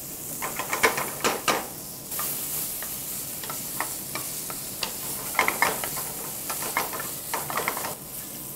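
Diced pancetta sizzling in a frying pan over medium heat as it renders its fat and browns, with a wooden spatula scraping and tossing it around the pan in several quick runs of strokes.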